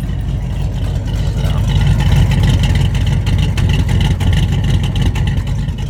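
Rebuilt 440 big-block V8 in a 1970 Dodge Charger running steadily with a low, pulsing exhaust note, getting slightly louder about two seconds in; the newly installed engine sounds "not too bad".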